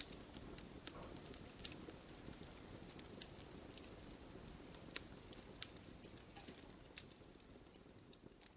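Wood fire crackling in a fireplace: irregular sharp pops and snaps over a low steady hiss, getting quieter near the end.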